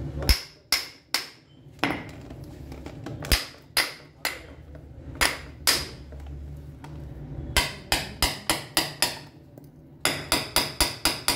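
Hand hammer striking a broken bolt stuck in the lug of a steel tube to knock it out: sharp metallic clangs with a short ring, in bursts of two to six blows, coming faster in a quick run near the end.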